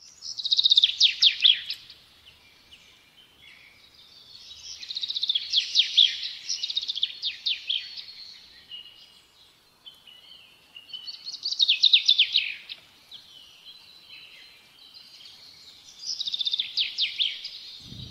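A songbird singing in four phrases of fast, falling notes a few seconds apart, with softer twittering between them.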